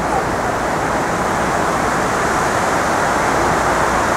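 Steady, even rushing of water pouring down the 9/11 Memorial's waterfall pools, with no breaks or separate events.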